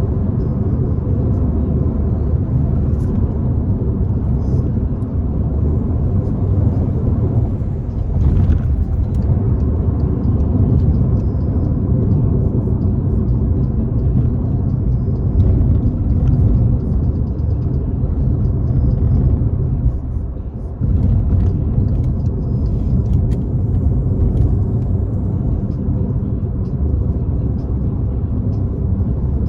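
Turbocharged Volkswagen Jetta engine running at cruise: a steady low rumble with road noise. The sound dips briefly about twenty seconds in.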